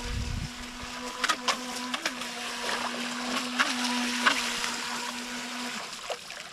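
Brushed electric motor of an FTX Glader (TY XIN 725) RC jet sprint boat running with a steady whine. There are several short splashes or knocks while it runs, with a brief rise in pitch at some of them. The whine cuts off about six seconds in.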